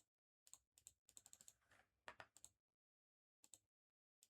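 Faint computer keyboard typing: quick runs of keystrokes in short bursts with pauses between, as login details are entered.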